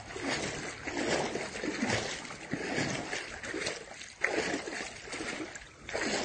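Muddy floodwater splashing and sloshing in regular surges, a little more than one a second, as something moves through it.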